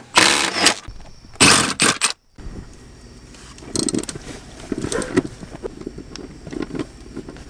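Cordless impact driver run in two short bursts on a truck's front-seat mounting bolts, then scattered clinks and knocks of hands working metal parts under the seat.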